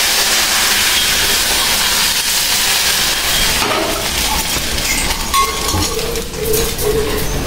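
Appam batter sizzling in a hot appam pan as the pan is swirled to spread it: a loud, even hiss for the first three or four seconds that then dies down, with a few light metal clicks near the end.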